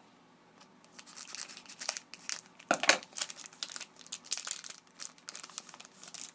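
Wrapper of a Panini Contenders hockey card pack crinkling and tearing as it is opened by hand, loudest about three seconds in.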